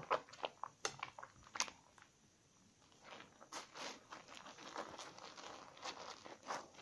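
A slightly soaked bar of 72% laundry soap being lathered between wet hands and a sponge: a run of sharp wet squishes and clicks, a brief pause about two seconds in, then denser foamy squelching and rubbing.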